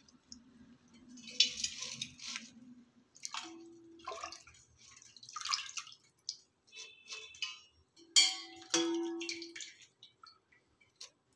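Hands swishing spinach leaves in a steel bowl of water and lifting them out, with irregular splashes and drips.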